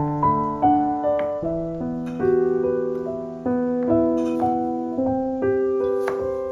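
Background music: a gentle piano melody, notes struck and held one after another over sustained chords.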